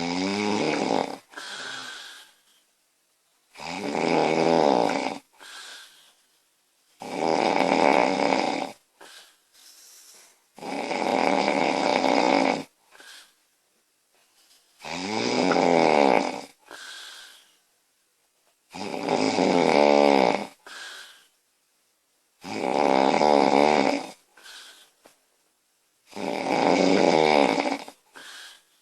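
A woman snoring loudly and regularly: eight snores, one every three to four seconds, each about a second and a half long and followed by a shorter, softer breath.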